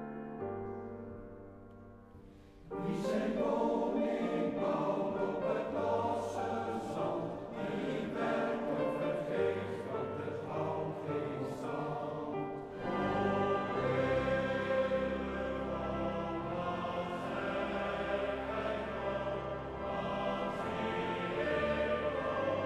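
Piano introduction dying away, then a large men's choir enters suddenly about three seconds in and sings a sacred song in full harmony.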